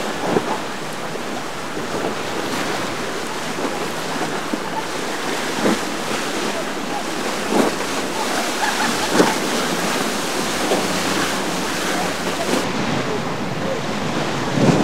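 Surf and waves washing at an inlet, with wind buffeting the microphone and the low steady hum of boat engines underneath. There are a few short louder moments.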